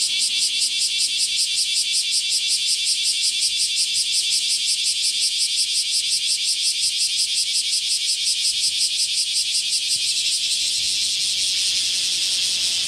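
Bear cicadas (kumazemi) singing in chorus: a loud, high buzz pulsing about four times a second, which evens into a steady buzz about ten seconds in.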